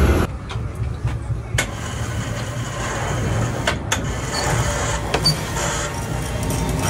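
Large steel crawfish-boil pot at a rolling boil, a steady low rumble from its burner and boiling water, with a few sharp clicks.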